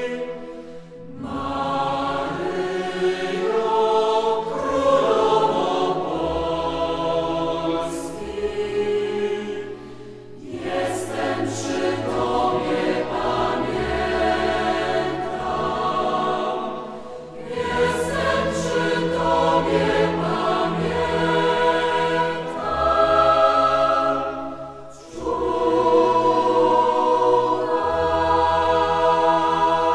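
A choir singing a slow sacred hymn in long held phrases, with a short break between phrases about every seven to eight seconds.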